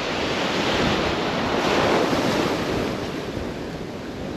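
Shallow surf washing in and a small wave breaking close by, swelling over the first couple of seconds and easing off after, with wind buffeting the microphone.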